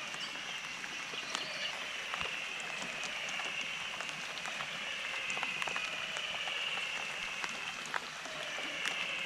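A steady high-pitched wildlife chorus that drifts slowly down in pitch in long sweeps, with scattered drips of rainwater falling after the rain.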